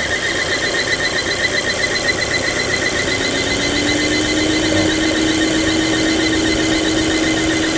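2017 Volvo XC60 T5 engine idling with a very loud whistle: steady high tones throughout, joined about three seconds in by a lower tone that rises slightly and then holds. The whistle comes from a torn membrane in the crankcase-ventilation oil separator, which lets in air, runs the engine lean and sounds as if it came from the alternator or belt.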